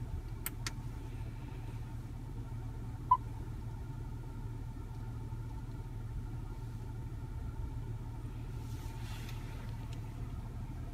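Steady low hum of a car cabin, with two light clicks near the start as the centre-stack NAV button is pressed. A short beep from the infotainment system comes about three seconds in.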